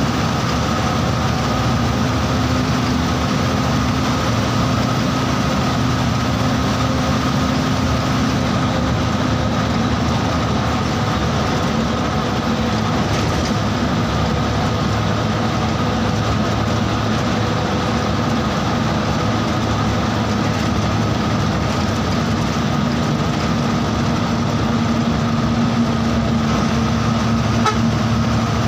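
Bus running steadily on the road: a constant engine drone with road and tyre rumble and a few steady tones, with no breaks or changes.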